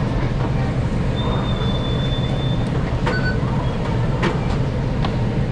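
Steady low rumble of commercial kitchen equipment and ventilation at a fast-food breakfast grill, with a few sharp clicks of metal tongs against the grill in the second half. A thin high beep sounds for about a second and a half starting about a second in.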